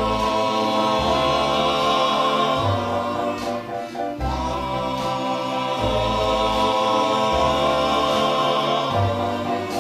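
Song intro from a 1950s pop record: a backing chorus holds long chords over an orchestra, with the bass note changing every second or two. No lead vocal yet.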